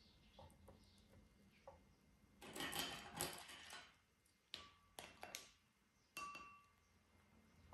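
Soft rustling as ladyfingers are handled and set against cling film, then four light clinks on a glass bowl of milk, each ringing briefly.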